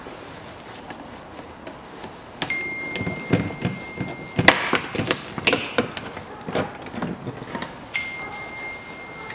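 Plastic side splash shield being pried and pulled off a Nissan Murano's underbody, its clips letting go. About two seconds in comes a run of clicks, knocks and plastic rattles, loudest near the middle. A high steady ringing tone is heard twice, about two seconds each time.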